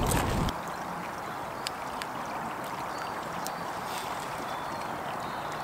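Stream flowing steadily, with wind buffeting the microphone for the first half second and a few sharp crackles from the campfire.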